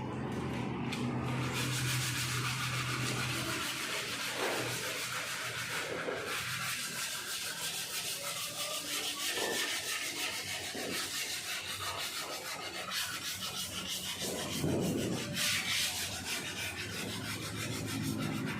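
Body filler on a car panel being sanded by hand with sandpaper: a continuous scraping rub made of quick, even back-and-forth strokes, which is the step that takes the filler down thin.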